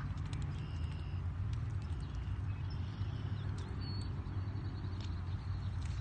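Low rumble of wind and handling noise on a handheld phone's microphone, with scattered small clicks and a few brief high chirps.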